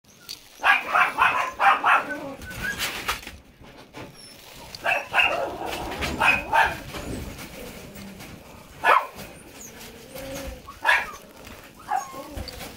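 Shiba Inu puppy making short, high yips and whines in bursts: a quick run of them in the first two seconds, then single ones every second or two, some sliding in pitch.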